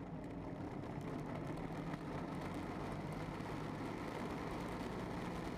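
Steady vehicle running rumble with a low, even engine-like hum.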